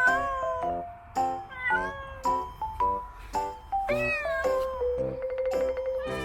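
Cat meowing several times, each call rising then falling in pitch, the longest about four seconds in, over background music of evenly spaced plucked notes.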